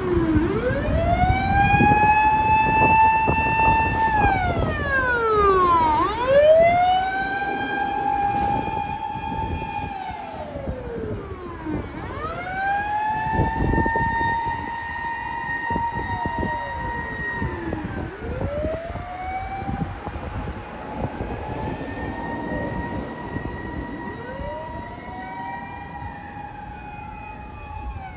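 A mechanical motor siren (MK-D1) on a Japanese fire-department emergency vehicle, wailing. Each cycle winds up over about a second, holds a steady high note for about two seconds, then winds down, repeating roughly every six seconds. It is loudest about six seconds in and then grows gradually fainter.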